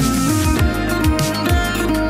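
Background music: a plucked guitar melody over a steady beat with deep bass hits.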